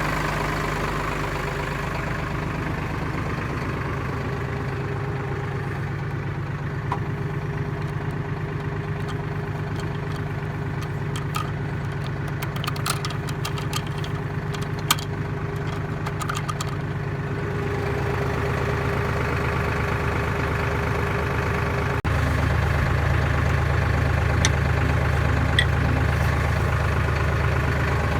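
Tractor engine idling steadily. A few sharp light clicks sound over it midway, and later the engine note drops lower and grows louder.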